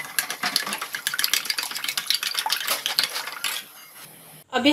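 Metal fork whisking beaten eggs in a ceramic dish: fast, steady clicking of the fork against the dish through the liquid egg, stopping about three and a half seconds in.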